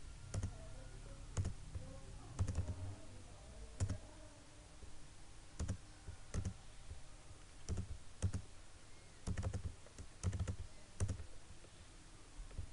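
Computer mouse clicking: about a dozen sharp single clicks at irregular intervals.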